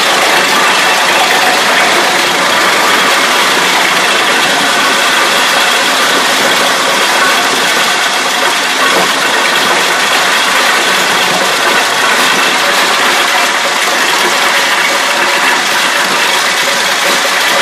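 Heizohack 6300 wood chipper running steadily under load, its toothed feed roller drawing a mass of brushwood and branches in to be chipped. The sound is a loud, even mechanical din with the tractor engine driving it underneath.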